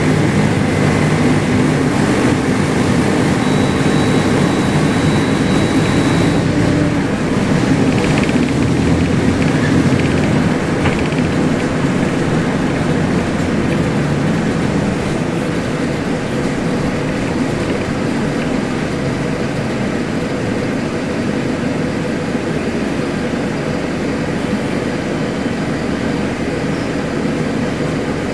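Mercedes-Benz OF-1721L bus diesel engine running loud and steady. Its note is strongest for the first several seconds, then settles a little quieter.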